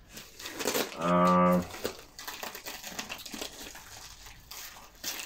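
Plastic parcel wrapping crinkling and rustling as it is cut and pulled open with a knife. About a second in, a man's voice holds one steady note briefly, like a drawn-out 'hmm'.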